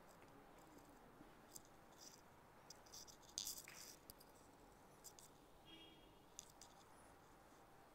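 Near silence: quiet indoor room tone with faint scattered clicks and rustles, one louder click about three and a half seconds in.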